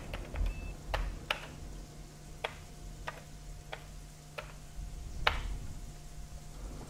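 Keys of a retro home-computer keyboard pressed one at a time: about ten separate, unevenly spaced clicks, the loudest about five seconds in, over a low steady hum.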